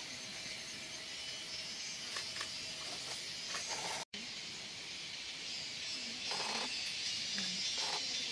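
A steady high hiss with no clear source, briefly cutting out about four seconds in.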